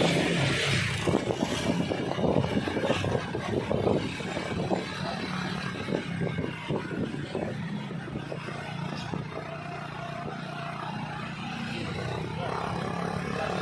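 Large diesel bus engine running with a steady low hum, mixed with choppy road and traffic rumble.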